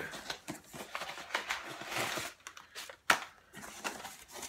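A cardboard box and its packing being rummaged through by hand: rustling and crinkling, with a sharp knock about three seconds in.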